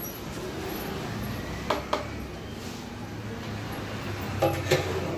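Short clanks of a serving plate knocking against large aluminium biryani cooking pots as rice is scooped and layered, two pairs of knocks with brief metallic ringing, over a steady background rumble.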